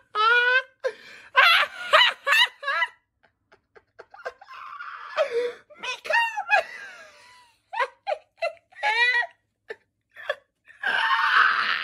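A person laughing in repeated high-pitched bursts, with a short lull a few seconds in before the laughter starts up again.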